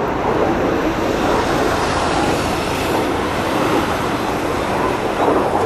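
Three Kawasaki T-4 jet trainers flying in formation, their turbofan engines making a steady, loud jet noise.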